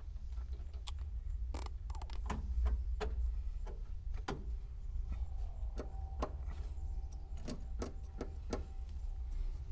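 Scattered light clicks and knocks of hands and tools working on a car's engine bay wiring, over a steady low rumble.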